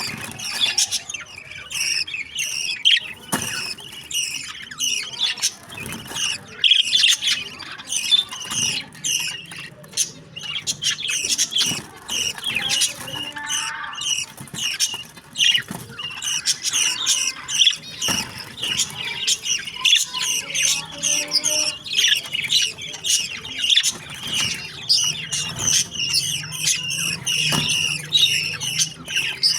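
Budgerigar chicks giving rapid, high chirping begging calls without a break, the calls of chicks being fed by a parent.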